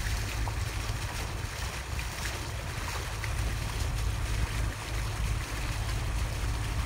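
A boat under way: a steady low rumble with wind buffeting the microphone and a hiss of water.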